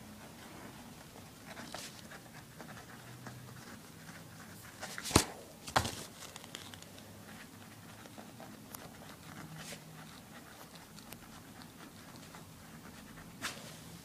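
Faint scratching and rustling of a feather quill pen writing in a hardback notebook, in a quiet small room. Two sharp knocks sound about five and six seconds in, and a smaller one comes near the end.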